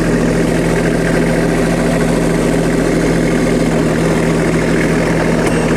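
Iseki RTS25 compact tractor's diesel engine running at a steady speed.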